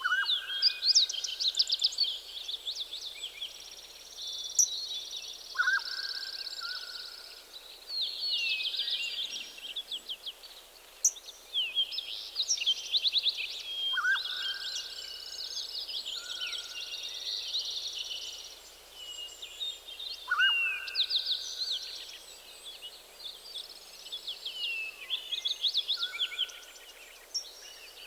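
A chorus of songbirds singing together in dense, overlapping trills and chirps. One bird repeats a lower, clear call with a sharp rising start every five or six seconds.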